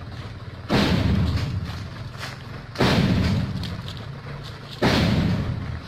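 Hino dump truck giving three sudden loud bursts of sound about two seconds apart, each fading away over a second or so.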